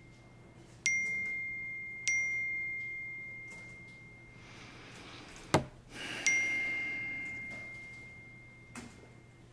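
Three clear bell-like dings on the same pitch, one about a second in, one about two seconds in and one past six seconds, each ringing out slowly. A single sharp click just before the third ding is the loudest sound.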